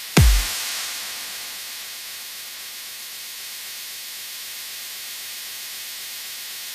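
Electronic dance track in a white-noise passage: a steady hiss with one heavy impact hit near the start, its pitch dropping fast into a deep sub-bass boom, after which the hiss swells briefly and settles.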